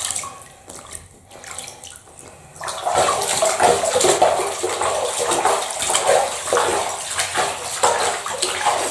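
Bathwater splashing and sloshing in a tub as hands scoop water over a cat standing in it: scattered splashes at first, then busy, continuous splashing from about three seconds in.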